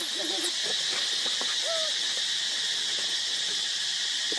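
A steady high insect drone, with a few short, soft rising-and-falling calls from a baby macaque.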